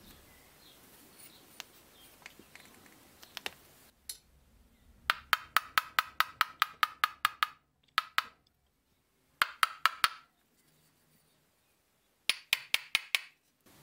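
Light hammer taps on the steel parts of a Fichtel & Sachs Torpedo mod 29 three-speed hub, quick and even at about five or six a second, each with a short metallic ring. They come in three runs with short pauses, the first and longest starting about five seconds in, after a few faint handling clicks.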